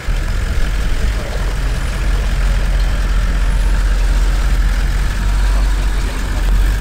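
Toyota Land Cruiser 70-series troop carrier's engine running at low revs, a steady low rumble, as the vehicle creeps slowly down a steep bank into a creek crossing.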